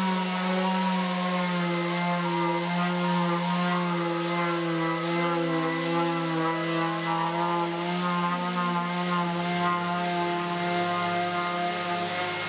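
Electric random orbital sander running steadily on a cured epoxy resin table top, a continuous motor hum whose higher overtones waver slightly in pitch.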